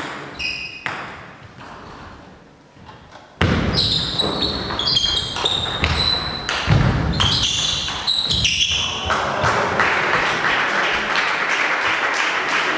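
A table tennis rally: the ball pings sharply off the bats and the table several times over a few seconds, starting abruptly about three and a half seconds in, with a few heavy low thuds partway through.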